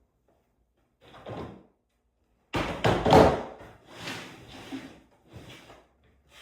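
Fresh wood shavings being tipped in and spread as bedding, in four rustling bursts; the loudest starts suddenly about two and a half seconds in.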